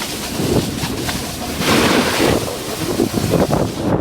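Wind buffeting the microphone of a moving camera over a steady rushing hiss of a board sliding on snow, swelling louder about halfway through and again near the end.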